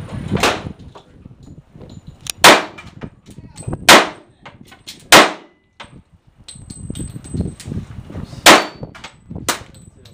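Centerfire handgun firing single shots at a steel plate rack, about six shots unevenly spaced, with a pause of about a second before the last two. Faint metallic ringing follows some shots as steel plates are hit.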